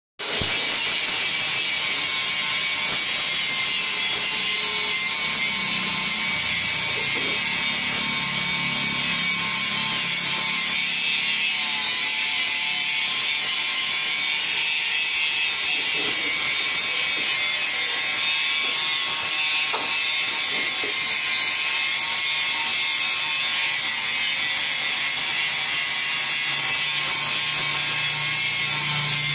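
Stick arc welding on a steel gate: the arc gives a steady, high hiss.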